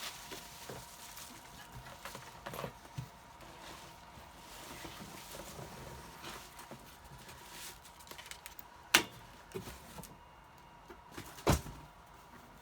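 Handling noise from radio equipment being moved and set down: light rustling and small clicks, with two sharp knocks about nine and eleven and a half seconds in.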